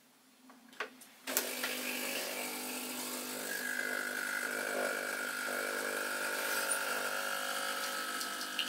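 Espresso machine starts up suddenly with two faint clicks just before, then its pump runs with a steady hum and the sound of water flowing as it brews a shot. A higher whine joins partway through.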